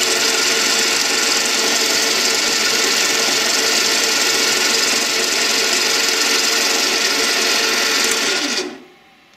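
South Bend 8K metal lathe running steadily with its chuck spinning. The machine is switched off about eight and a half seconds in, and the sound dies away within half a second.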